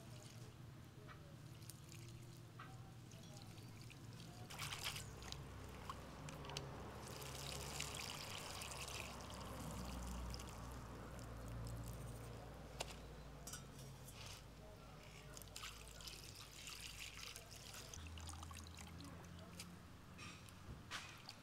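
Water pouring and trickling as fresh herbs are rinsed in a plastic bowl and the water is drained off onto the ground, with light clicks from handling the greens and bowl. The pouring comes in two main spells, the first about a third of the way in, the second near the end.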